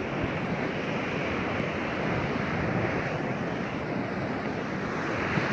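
Steady rush of ocean surf, with wind blowing across the microphone.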